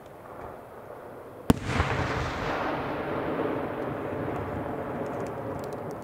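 A firework shell bursts overhead with one sharp bang about a second and a half in. A long rumble follows and slowly fades, with a few faint pops near the end.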